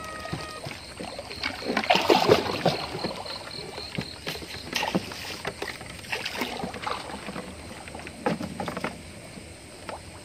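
Irregular knocks, splashes and rustling from a small wooden boat nosing into waterside brush while a fisherman at the bow works bamboo fishing poles; the loudest cluster comes about two seconds in.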